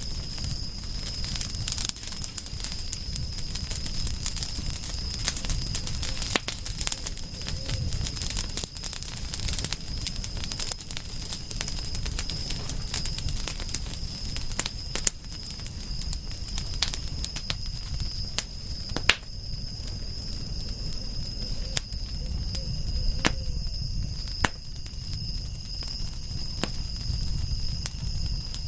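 Campfire burning, with irregular sharp crackles and pops of the wood over a low rumble of the flames. A steady high-pitched tone sits above it.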